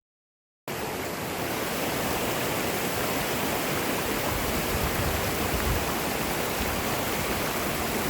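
Steady rushing water of a stream, an even hiss with no breaks, starting suddenly after a moment of dead silence.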